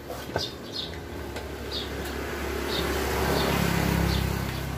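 A steady machine hum that swells to its loudest a little past the middle and then eases slightly. Short high bird chirps come about once a second over it.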